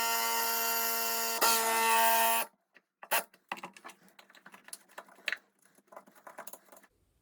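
Power drill with a metal drill bit running at high speed, a steady high whine, drilling out a rusted, stripped screw; it checks briefly once and stops about two and a half seconds in. After that, scattered light clicks and taps.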